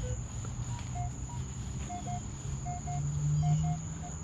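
Minelab Equinox 800 metal detector giving short, irregular target beeps that jump between several pitches, the sign of an unsteady, iffy target signal. A steady high insect drone and a low hum run underneath.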